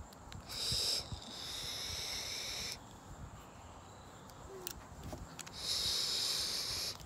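Two long draws on a VooPoo Drag Mini sub-ohm vape with a UForce T2 tank: air and vapour hissing through the tank's airflow and firing coil, the first about two seconds long starting half a second in, the second starting near the end.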